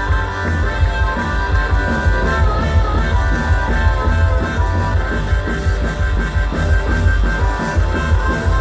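Live country-rock band playing an instrumental break: a harmonica solo wails over guitars and a steady pulsing bass beat, one harmonica note bending and wavering about three seconds in.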